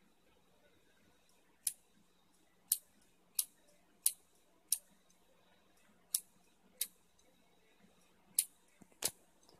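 Open 2.5-inch laptop hard drive spinning with its cover off, its read/write head arm clicking sharply nine times at irregular intervals of under a second to about a second and a half. This is the 'tick tick' click of a failing drive, which the repairer puts down to the head having come off the platter.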